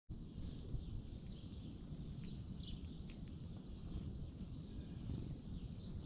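Small songbirds giving many short, high chirps and calls over a steady low rumble, with two faint clicks a little past the middle.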